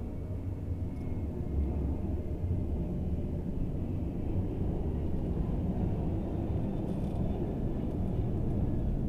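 Boeing 737-800's CFM56-7B jet engines running, a steady low rumble with faint whining tones above it.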